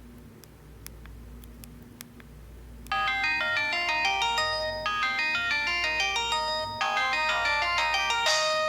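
A Pantech C120 phone playing a melodic ringtone through its small speaker, several notes at once in a quick tune that starts about three seconds in, after a low hum and a few faint clicks. Its ringtones are ones the uploader hears as distorted.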